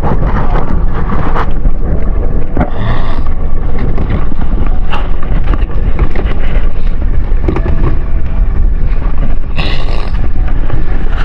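Small boat under way: its motor running, with wind buffeting the microphone, a loud steady rumble.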